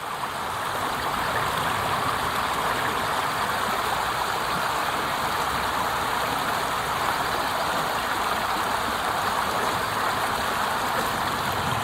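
Water tumbling down a small cascade, a steady even rush that fades in at the start.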